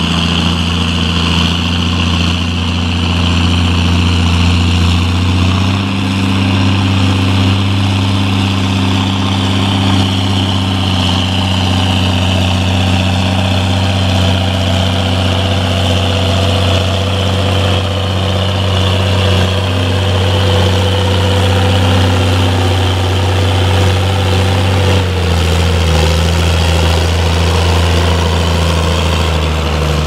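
Ford TW25 tractor's six-cylinder turbo diesel running loud and steady under load while pulling a plough through the field, its pitch stepping slightly twice.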